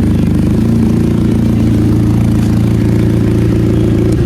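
Benelli motorcycle engine running steadily at an even speed through its stock exhaust, loud and low.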